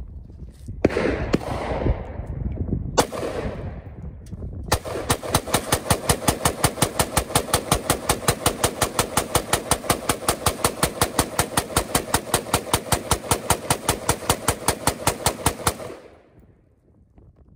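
Rifle fire: a single shot about a second in and another about three seconds in, then a long, evenly spaced string of rapid shots lasting about eleven seconds that stops abruptly.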